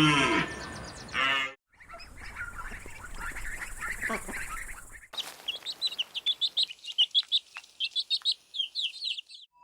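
Separate animal recordings cut together: a low pitched call ends about a second and a half in, then birds call over a noisy background, then from about five seconds in a bird chirps in a long fast run of high notes.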